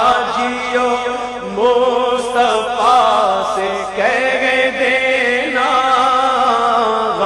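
Naat, Islamic devotional chant, sung with voices in long, wavering melodic lines over a steady held note.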